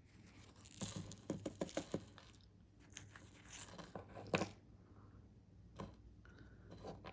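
Faint rustling and light clicks of small paper-wrapped ladyfinger firecrackers and the firework's paper casing being handled. The sounds come in short clusters about a second in and around four seconds in, with a single click near six seconds.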